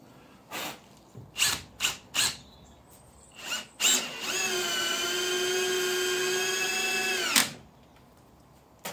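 Makita cordless drill driver working into the bifold door frame: a few short trigger bursts, then one steady run of about three and a half seconds that stops abruptly.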